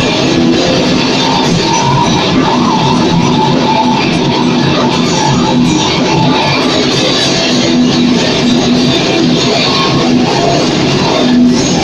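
A metal band playing loud and continuously on electric guitar and drum kit.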